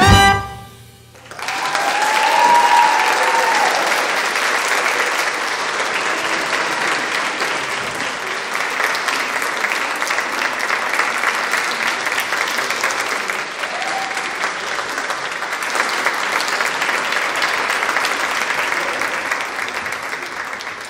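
Music stops on its last note within the first second, then an audience applauds steadily, the clapping beginning to die away at the very end.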